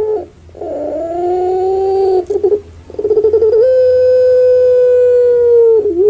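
Puter pelung (a domestic ringneck dove, Streptopelia risoria) calling: a short note, then a long held note, a brief stuttering rattle, and a second long held note of more than two seconds that sags slightly in pitch at the end.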